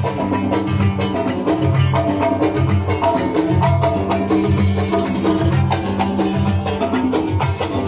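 Loud, fast dance music with a busy, even hand-drum rhythm over a pulsing bass line.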